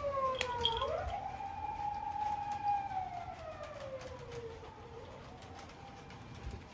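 Emergency-vehicle siren wailing: its pitch falls, sweeps back up about a second in, then slides slowly down and fades.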